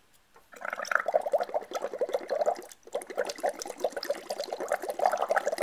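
Bubbling from breath blown through a drinking straw into a glass of water with phenol red indicator: two long blows with a short pause between them about two and a half seconds in.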